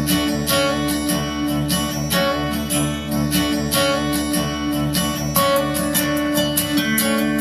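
Xdobo Wing 20 W Bluetooth speaker playing guitar-led music at full volume, with steady, evenly repeating plucked-string notes.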